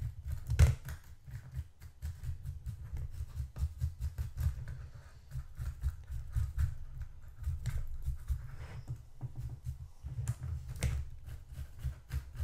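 A stiff paintbrush scrubbing and flicking over 1/16 scale plastic tank track links while dry-brushing: irregular scratchy ticks and small clicks, two louder clicks, one about half a second in and one near the end, over a steady low rumble.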